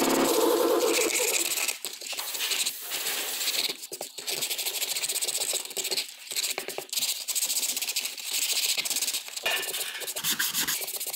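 Olive wood being sanded by hand with abrasive paper: a scratchy rubbing hiss from back-and-forth strokes, with a few short pauses.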